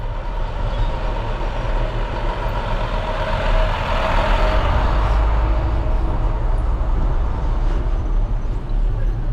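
A box truck running as the bike passes close beside it, a steady hum and hiss that swells to its loudest about four seconds in and then fades. Under it, a steady low rumble of wind on the microphone.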